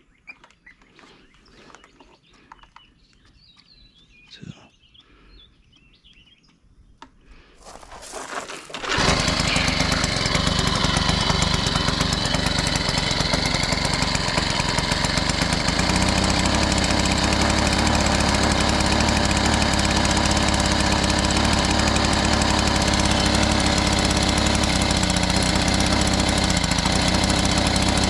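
A Troy-Bilt edger's small four-stroke engine starts about eight seconds in, after a few quiet seconds, and then runs steadily and loudly, its low hum growing fuller about sixteen seconds in.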